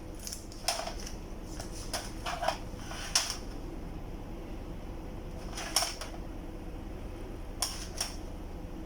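Scattered light clicks and taps of small tools and parts being handled on a workbench, about seven in all, over a steady low hum.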